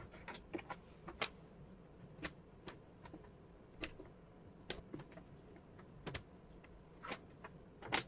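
Wooden jigsaw puzzle pieces clicking and tapping on a hard tabletop as they are picked up, moved and fitted together: faint, irregular small clicks with a couple of sharper knocks.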